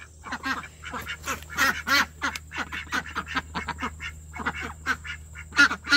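A flock of domestic ducks quacking loudly, many short calls coming fast and overlapping.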